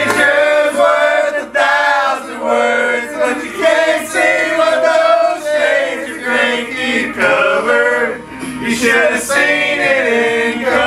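A group of men singing together, without instruments.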